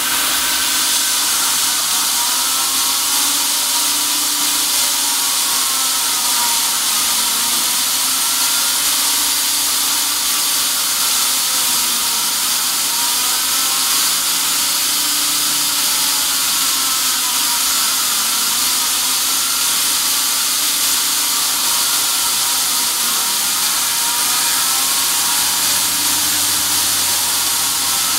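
A CNC milling machine cutting a pocket into a steel 1911 pistol slide with an end mill. A steady loud hiss comes from the nozzle blowing onto the cutter. The axis motors whine in rising and falling pitches as the tool traces the pocket, and the pattern repeats every couple of seconds.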